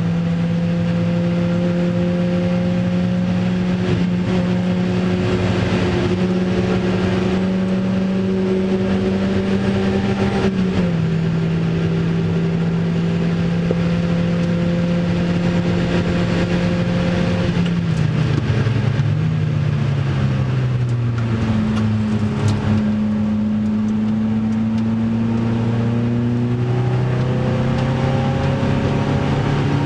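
Opel Speedster's 2.2-litre four-cylinder engine at full throttle, heard from inside the cabin, its pitch climbing slowly along a long straight with a slight dip about ten seconds in. Around eighteen seconds in the pitch falls with short blips as the car brakes and shifts down for a corner, then rises again as it accelerates out.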